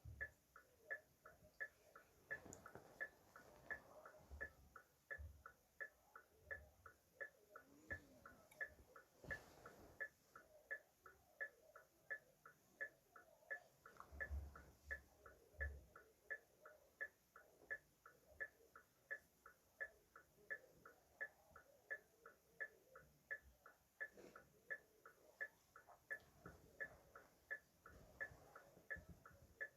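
Car hazard-light flasher relay ticking in an even rhythm, about two to three clicks a second.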